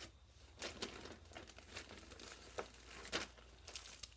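Craft-supply packaging crinkling and rustling as it is handled, in irregular crackles with a few sharper ones.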